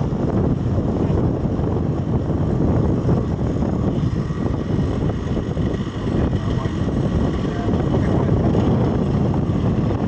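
Strong wind blowing across the microphone, a loud, steady rushing noise.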